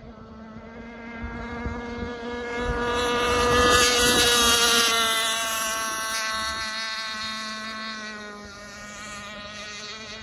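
Engine of a Bonzi Sports 47 Skater RC speedboat running at speed, growing louder as the boat passes closest about four seconds in, then fading as it runs away with the pitch dropping slightly.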